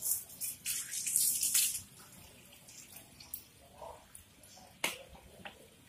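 Water from a garden hose splashing over a wet puppy and a tiled floor, in bursts during the first two seconds and then quieter. A single sharp click about five seconds in.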